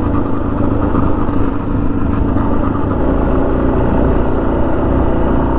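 Suzuki DR-Z400S single-cylinder dual-sport motorcycle engine running at a steady pace under way, with the rush of riding noise behind it.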